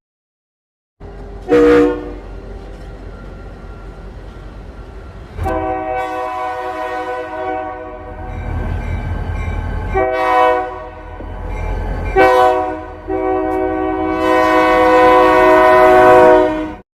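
A freight train passing close, its low rumble growing louder, while the diesel locomotive's multi-chime air horn gives a brief toot and then blows long, long, short, long, the grade-crossing signal. The recording cuts off abruptly at the end of the last long blast. The uploader believes, without being certain, that the horn is Reading and Northern #3055's.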